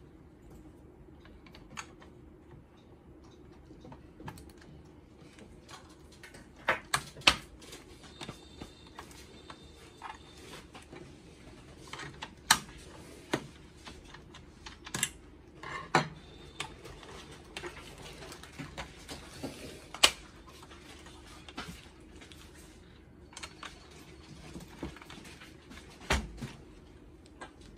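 Irregular clicks, clacks and knocks of hard plastic printer parts being handled, pried and snapped together or apart, with a screwdriver working on a gear of the card printer's feeder. A few sharper clacks stand out among the lighter clicking.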